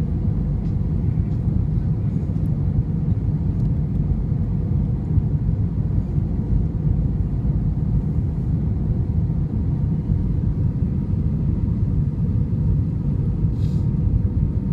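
Airbus A320 cabin noise in flight: a steady low rumble of the jet engines and airflow, with no change in pitch or level.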